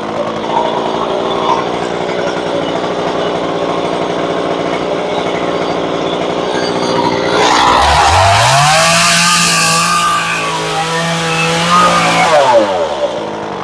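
Stihl two-stroke chainsaw idling for several seconds. About eight seconds in it revs up and cuts into the wooden post for about four seconds, then drops back toward idle near the end.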